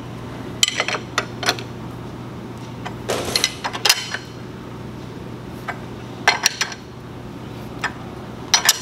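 Metal clicks and clinks of a wrench working the center bolt of a homemade front main seal installer on a John Deere 4045 engine, in scattered short clusters over a steady low hum. The bolt is being tightened to press the front crankshaft seal into the timing cover.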